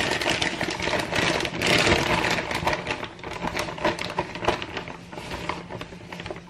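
Potting soil and its bag being handled: dense rustling and crackling for the first few seconds, thinning to scattered clicks and crackles.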